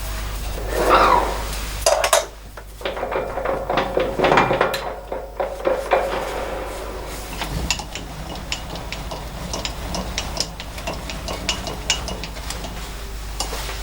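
Metal parts and tools clinking and tapping while a workpiece is set up in a lathe's four-jaw chuck, with copper packing on the jaws. There is a louder scrape about a second in, and a busier stretch of knocks a few seconds later.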